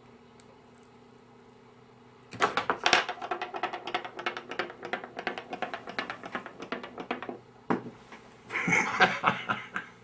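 Fast, dense crackling clicks from the stripped end of a stranded wire being worked and twisted between the fingers, about ten a second for some five seconds. Near the end comes a short burst of knocks and rattles of small items handled on a wooden bench.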